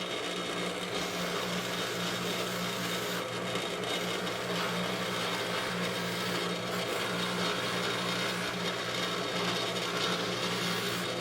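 Electric buffer motor running with a steady hum while a metal divot tool is held against the compound-loaded buffing wheel, giving a constant rushing rub of the wheel on the metal.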